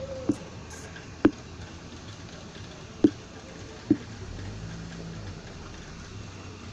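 Four sharp taps, irregularly spaced over about four seconds, over a steady background noise.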